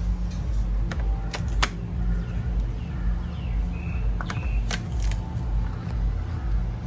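Kitchen knife chopping garlic on a cutting board: a few sharp, irregularly spaced knocks over a steady low rumble.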